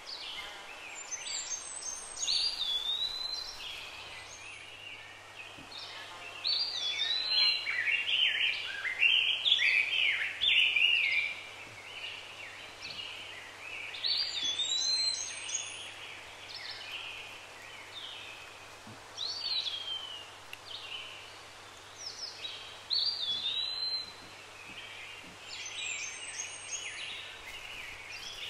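Birds calling and singing in repeated bursts of chirps and short whistled notes over a steady background hiss, busiest in the first half. A faint low hum comes in a few seconds in.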